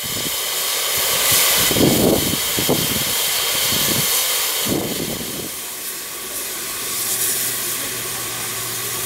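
LNER Peppercorn A1 steam locomotive No. 60163 'Tornado' standing in steam, letting off a steady hiss of escaping steam. A few short low rumbles come in the first half, and a low steady hum joins about two-thirds of the way in.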